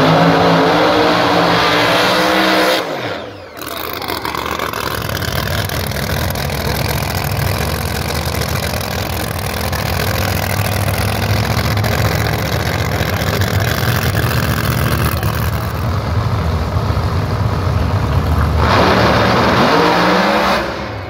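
Drag racing car engines running at the starting line, a loud steady low rumble that revs up near the end. The sound drops out briefly about three seconds in.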